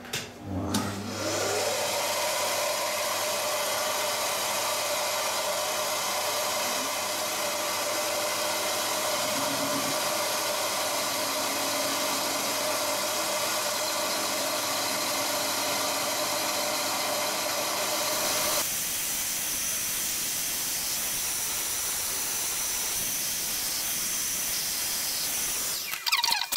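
Shop vacuum motor spinning up and running steadily with a loud hiss, while a metal lathe turns the outer diameter of a fibre-reinforced phenolic gear blank. About two-thirds through, the sound thins and changes, and the steady noise stops near the end.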